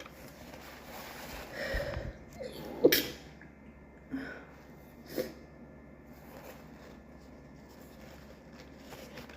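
A woman's wet sneeze: a breathy build-up, then one sharp, loud sneeze about three seconds in, followed by two smaller sneezing bursts a second and two seconds later.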